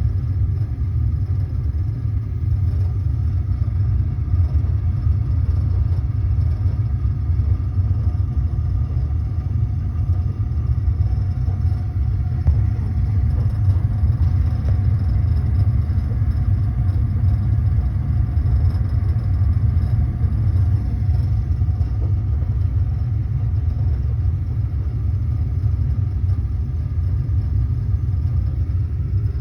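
A.O. Smith gas water heater's burner firing, a steady low rumble.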